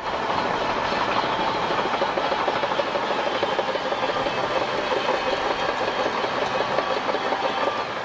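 Shantui crawler bulldozer running, its diesel engine giving a steady noise under a dense, rapid clatter of the steel tracks as the machine moves.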